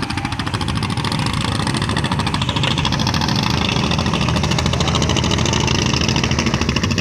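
Wooden river boat's engine running with a fast, even chugging pulse, growing louder over the first few seconds as an engine boat passes close by.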